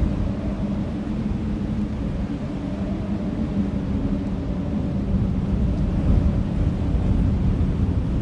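Wind blowing across an open field, buffeting the microphone with a deep, gusting rumble. A faint steady drone runs underneath.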